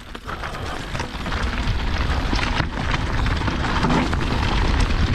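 Mountain bike rolling fast down a rocky dirt trail: wind rushing over the action-camera microphone with a heavy low rumble, and tyres crunching over gravel and stones with a stream of small rattling knocks. It builds over the first second or two as speed picks up.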